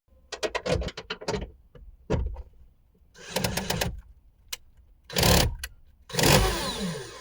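Hand-tool work on bolts in a car's rear hatch: a quick run of clicks lasting about a second, then scattered clicks and short bursts of scraping and rattling.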